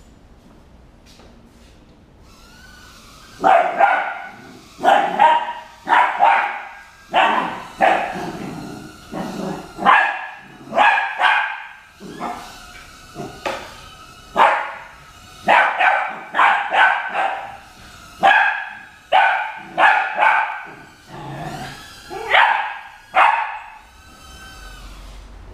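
Border Collie puppy barking over and over, short sharp barks about one and a half a second, starting a few seconds in and stopping shortly before the end.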